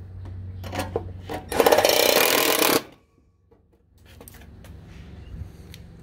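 A power tool runs in one burst of about a second, a loud rapid rattling buzz, with light clicks and knocks of parts being handled before and after it.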